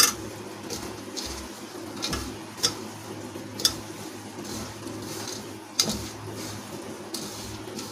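Hands working a dry mixture of coarsely ground makhana, peanuts and gond in a large steel bowl: a soft gritty rustle, broken by a handful of sharp clicks against the steel. A faint steady low hum runs underneath.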